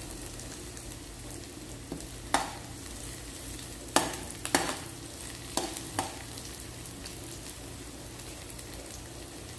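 Garlic and shallots sizzling in oil in a wok, early in the sauté before the garlic has browned. A spatula stirs them, knocking against the wok a few times between about two and six seconds in.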